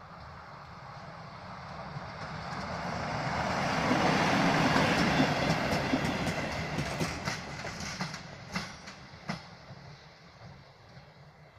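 Two-car regional passenger train approaching and passing close by, growing louder to a peak about halfway, then fading as it moves away. As it leaves, its wheels give a handful of sharp clacks over the rail joints.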